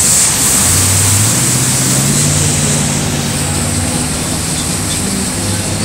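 MasterCraft wakeboard boat's inboard engine running under way, a steady low drone under the rush of water and wind.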